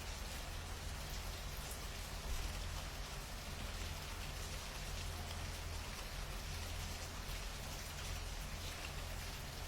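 Steady rain falling, with fine scattered drips and a constant low rumble underneath; one small knock about two seconds in.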